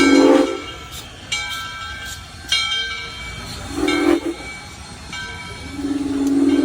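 Southern Railway 630's Nathan six-chime steam whistle blowing a chord: a short blast at the start, another short blast about four seconds in, then a long blast starting near the end. A higher ringing, struck about once a second, sounds between the blasts.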